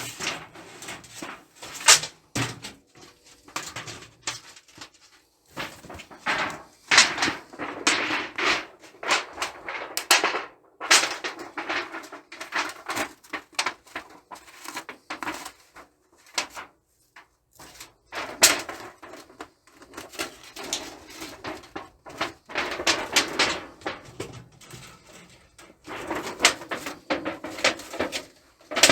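Handling noise: irregular clattering, scraping and rubbing of hard objects being moved about, in bursts with short quiet gaps.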